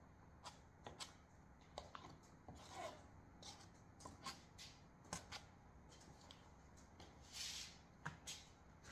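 Faint scraping and light clicks of a toothed comb tool being worked through wet paint on a canvas, with a longer scrape about three-quarters of the way through.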